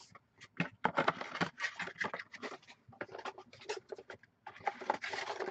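Cardboard trading-card box and sealed foil packs handled on a table: irregular light rustling, tapping and clicks as the packs are slid out of the box and set down.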